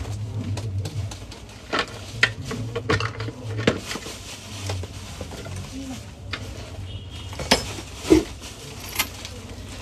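Scattered clinks and knocks of plastic and metal appliance parts handled on a workbench, a few sharper knocks near the end, over a low hum that fades about halfway through.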